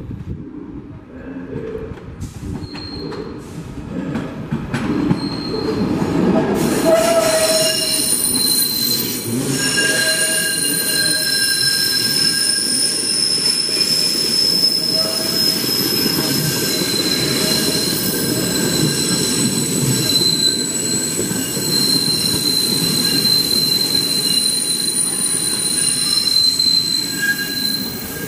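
SEPTA Broad Street Line subway train running slowly around a tight curve: a low rumble of wheels on rail grows as it approaches, and about six seconds in the wheels begin squealing in several high, steady tones that hold as the cars pass.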